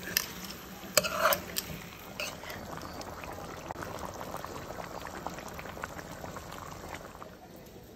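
A pot of hassa fish curry simmering and bubbling, with a brief louder sound about a second in.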